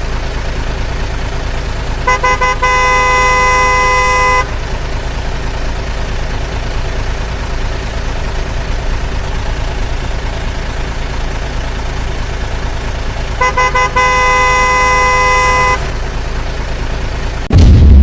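Steady low vehicle engine rumble with a horn honking twice: each time a few quick toots followed by one long blast, about two seconds in and again about two-thirds of the way through. A loud low boom comes just before the end.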